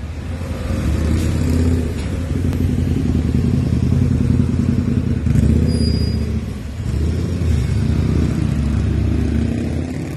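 A loud, low mechanical rumble with a steady hum in it, swelling and fading, with a brief dip about two-thirds of the way in.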